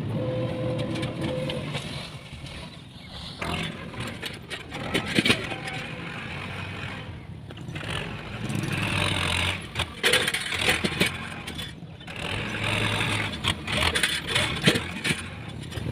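Diesel construction machinery running, with scrapes and several sharp knocks. The engine swells louder twice, in the middle and near the end.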